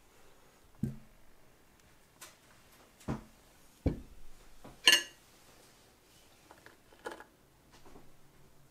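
Tableware being handled: a handful of separate knocks and clinks of ceramic and dishes, the loudest a sharp, bright clink about five seconds in.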